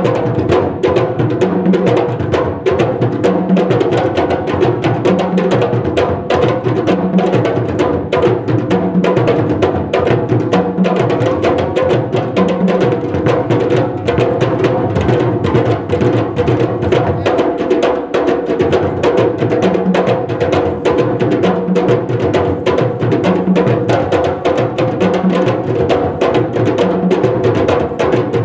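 West African hand-drum ensemble of djembes with a large barrel drum playing a fast, driving rhythm for dance. A low drum stroke lands about once a second, drops out for a few seconds midway, then returns.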